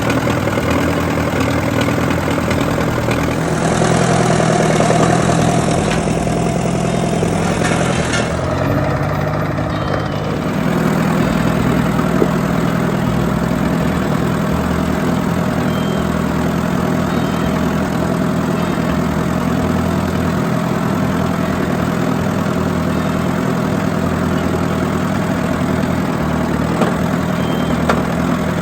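A motor engine running steadily at idle. A hissing noise sits over it from about four to eight seconds in.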